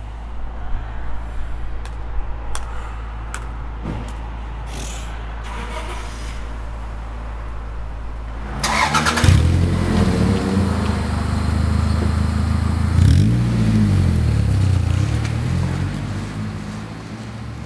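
A 1995 Toyota Celica's engine cranks and catches about eight and a half seconds in, then revs up twice as the car pulls away and fades near the end. Before the start there is a steady low hum with a few light clicks and knocks.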